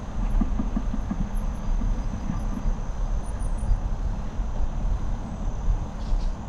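Specialized Epic mountain bike rolling fast over a dirt singletrack: continuous tyre and frame rumble with wind buffeting the microphone, and irregular rattles over bumps in the first couple of seconds.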